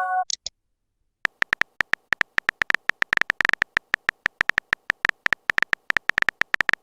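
Rapid phone-keyboard typing clicks, the texting-story typing sound effect, several a second, starting about a second in after a brief high blip.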